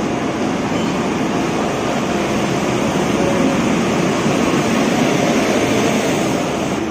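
Express passenger train rolling into a station platform: a steady rumble of the coaches and their wheels on the rails.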